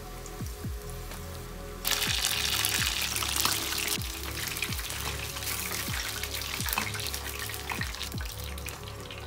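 Battered chicken pieces deep-frying in hot oil: a dense sizzling crackle that jumps much louder about two seconds in and then slowly fades.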